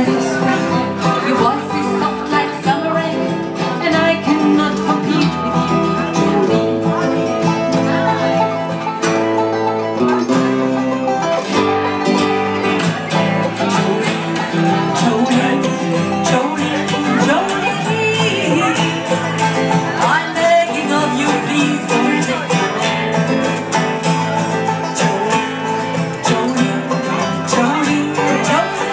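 Live bluegrass-style country music: several steel-string acoustic guitars strumming and picking, with a five-string banjo, playing a fast tune.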